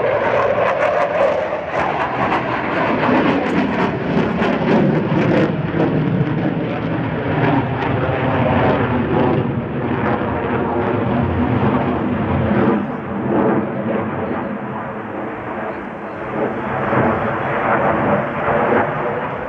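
Loud, continuous jet noise from a Eurofighter Typhoon's twin EJ200 turbofan engines as the fighter flies its display overhead, easing slightly about two-thirds of the way through.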